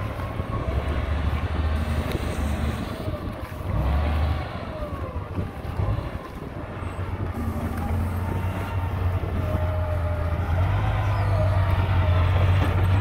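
Komatsu GD625A motor grader's diesel engine running, a deep steady rumble with a thin wavering whine above it, growing louder near the end as the grader comes closer.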